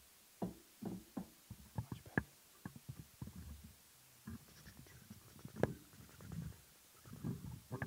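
Microphone handling noise: irregular low bumps, knocks and a few sharp clicks as the podcast microphones are moved and adjusted on their tabletop stands.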